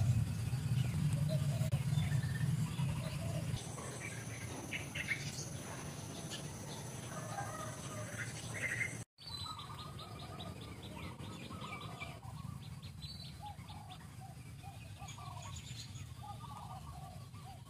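Wild birds chirping and calling, many short notes scattered throughout, over a low rumble that is loudest in the first few seconds. The sound cuts out for a moment about halfway through.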